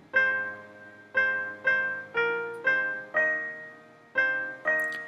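Finale Notepad playing back a four-part SATB choir score with a General MIDI grand piano sound, chords struck about twice a second. The soprano line is set louder than the other parts, so it stands out over the soft lower voices.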